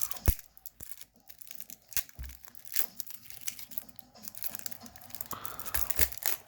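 Wrapping around a bundle of trading cards being torn open by hand, with crinkling, scratching and sharp small cracks, the loudest about a third of a second in.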